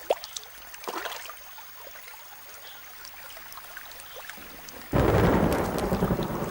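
Heavy rainforest downpour with thunder that begins suddenly about five seconds in, a dense rushing noise with a deep rumble under it. Before it there is only a quiet background with a few short high calls.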